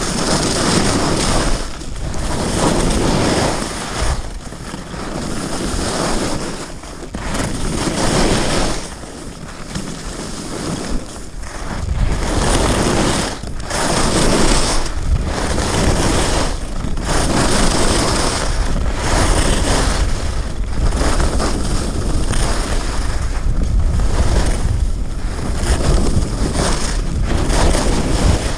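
Skis scraping and carving over firm piste snow through a run of turns, with wind rushing on the microphone. The hiss swells and drops with each turn, every couple of seconds, and the wind rumble grows heavier about halfway through.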